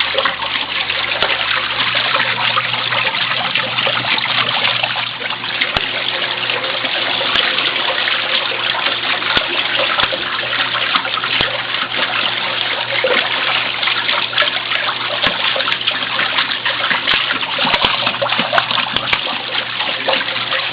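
Water running and splashing steadily inside a Mueller 10 kg washing machine during its rinse with fabric softener, just before the spin, with a faint low hum under it.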